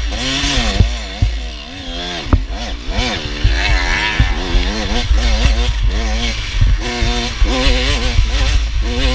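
Super Mini class motocross bikes racing, engines repeatedly revving up and dropping back as the riders shift and work the throttle, over a constant low rumble.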